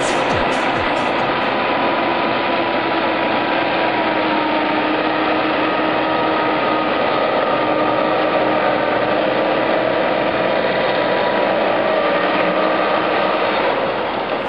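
A heavy truck's engine running steadily under load as the truck pushes through deep snow, with a whining tone whose pitch lifts slightly around the middle.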